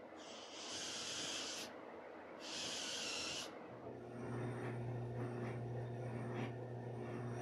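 A Makita cordless drill runs in two short bursts, its bit cutting through clamped plywood. About four seconds in, a drill press takes over with a steady motor hum as its twist bit bores into a plywood disc.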